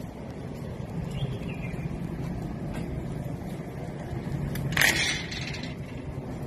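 Steady low rumble of wind on the microphone, with a brief loud scraping rustle about five seconds in.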